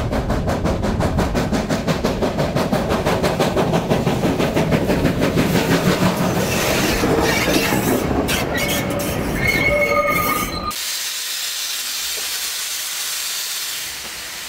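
Class 25NC steam locomotive working slowly past at close range, its exhaust beating quickly and evenly, then a high wheel squeal as it rolls by. About eleven seconds in, this gives way abruptly to a steady hiss of steam escaping around the driving wheels.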